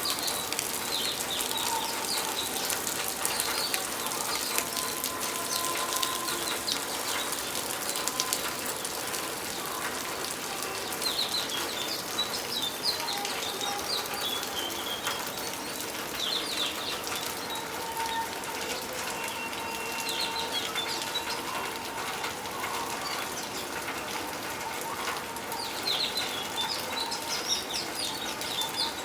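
Steady rain falling, a dense hiss of many small drops, with small birds chirping in short runs now and then.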